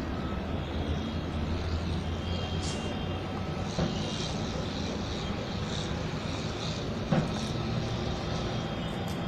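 Steady low rumble of distant city traffic, with faint higher sounds over it and a single sharp click about seven seconds in.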